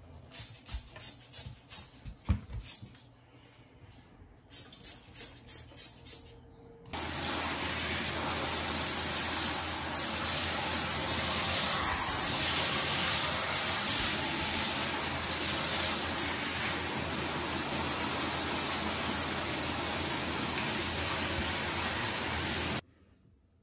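A trigger spray bottle squirted in quick repeated pumps, about three a second. Then a handheld shower spraying water onto the tiled bathroom floor in a steady hiss for about fifteen seconds, which cuts off suddenly near the end.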